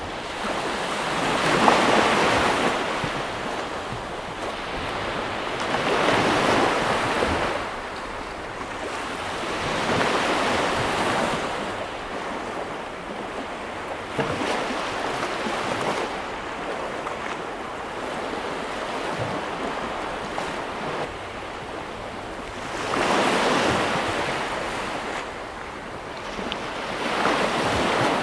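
Sea waves breaking, the surf swelling and easing in repeated surges a few seconds apart, with a calmer spell in the middle between them.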